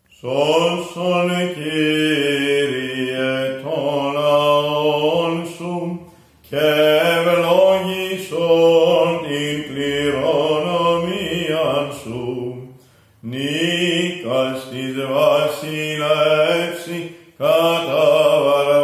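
A priest's solo male voice singing Byzantine chant from a book, in long phrases of held notes whose pitch turns within each note, with short breaks about six, thirteen and seventeen seconds in.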